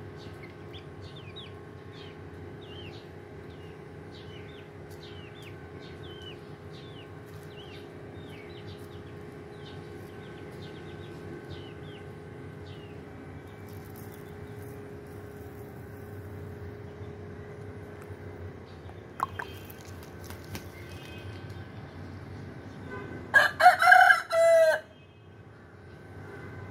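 A domestic rooster crows once near the end, a loud crow of about a second and a half. Earlier, a run of short, high falling chirps repeats over a steady faint hum.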